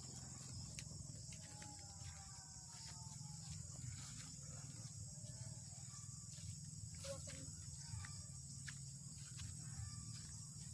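Insects trilling steadily at a high pitch over a low steady rumble, with faint scattered ticks.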